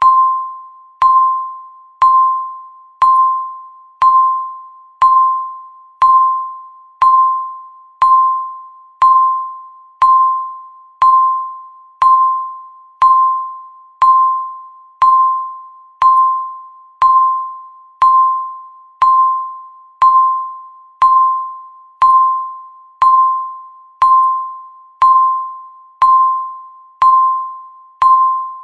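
A countdown timer's tick sound: one short ringing electronic ping every second, each starting sharply and fading away before the next.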